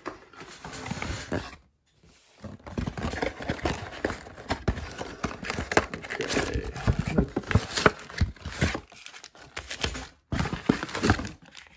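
A cardboard trading-card box being opened by hand and the foil card packs inside handled: a run of cardboard rustling and scraping with light knocks on a wooden table.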